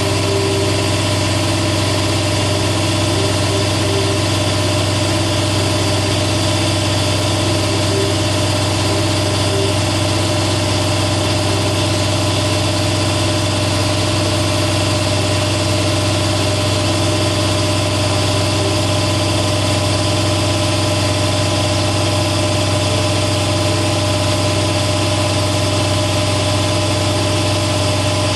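Air compressor running: a loud, steady mechanical drone with a low hum and several constant tones above it.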